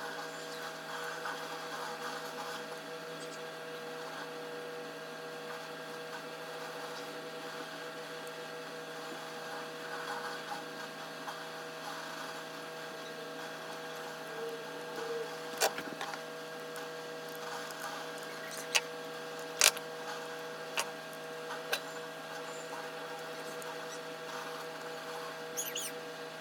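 Small tools clicking and tapping at a wah pedal's circuit board while a burned resistor is replaced with a 100-ohm quarter-watt one. There are a handful of sharp clicks in the second half, over a steady hum.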